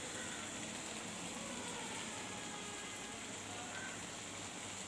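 Chana dal simmering in an aluminium pan on a gas stove: a steady, even hiss with no distinct knocks or bubbles standing out.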